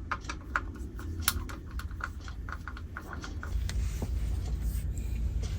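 Irregular light clicks and taps of a screwdriver tightening screws while mounting an electrical outlet, thinning out after about three and a half seconds, over a low steady hum.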